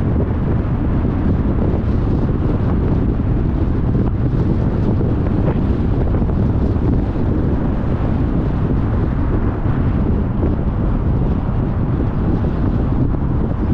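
Wind noise rushing over the microphone of a moving car, over a steady low road rumble.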